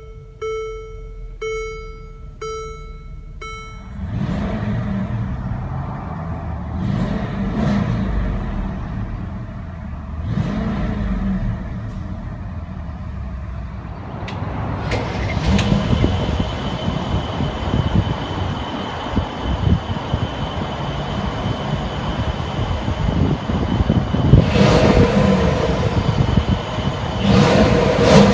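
A chime sounds four times, then the 2017 Mercedes-Benz GLS550's 4.7-litre bi-turbo V8 starts about four seconds in and idles, swelling with a few revs. Near the end the V8 is revved sharply twice, heard at the exhaust.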